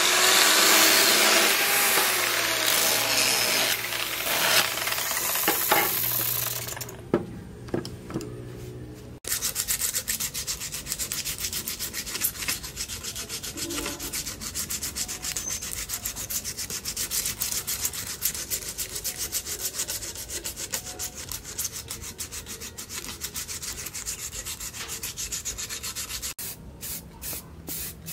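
Electric angle grinder grinding the steel of a leaf-spring machete blade, its pitch sagging and rising under load, for the first several seconds. Then a long run of rapid hand-rubbing strokes on the machete's wooden handle, and near the end short repeated bursts from an aerosol spray can, about three a second.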